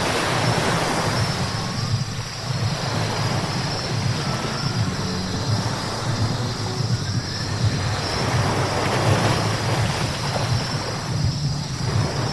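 A car driving on a wet road: steady tyre hiss over a low hum, the hiss swelling now and then.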